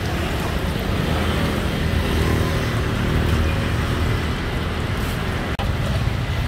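Steady street ambience: a low rumble of traffic, with an instant's dropout about five and a half seconds in.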